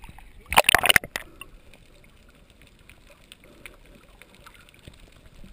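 Seawater splashing loudly against a camera at the surface for about half a second near the start. Then comes muffled underwater sound with faint scattered clicks and crackle as the camera stays submerged.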